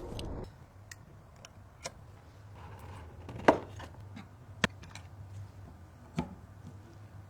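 Scattered clicks and light knocks of computer parts being handled during assembly. The sharpest knock comes about three and a half seconds in, with single sharp clicks about a second later and near six seconds.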